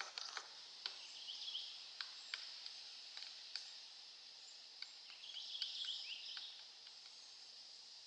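Pileated woodpecker pecking and chipping at a rotting log: scattered sharp taps at irregular intervals, some in quick pairs. A bird twitters faintly in the background twice, the second time for about a second past the middle.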